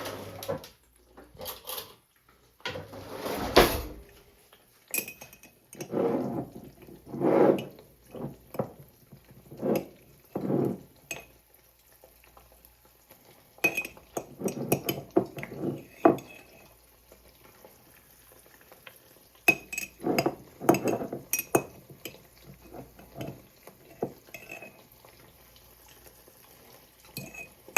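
A metal fork clinking and scraping against a glass jar and the pan while scooping out thick salsa, in irregular bursts of strokes with short pauses between.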